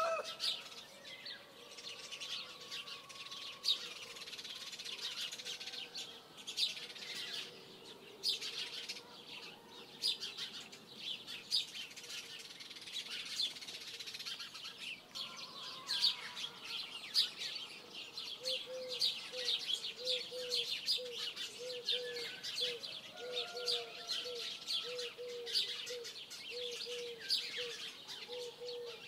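Small songbirds chirping and singing throughout. In the second half a low call joins them, repeated in short runs about once or twice a second.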